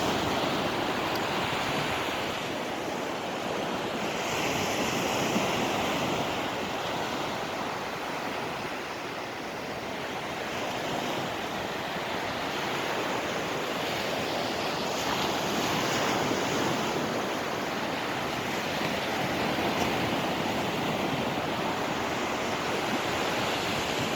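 Sea surf washing in, a steady rushing noise that slowly swells and eases.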